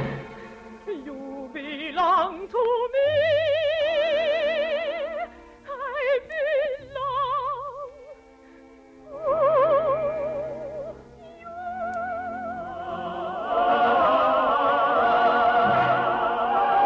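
Dramatic orchestral music from a radio operetta: a high melody in long notes with wide vibrato, with an upward glide near the start and pauses between phrases, then a fuller orchestral swell near the end.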